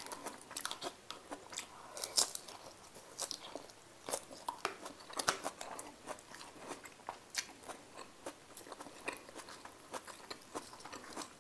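A person chewing a crisp fresh vegetable salad of greens and shredded carrots close to a clip-on microphone: a run of irregular small crunches.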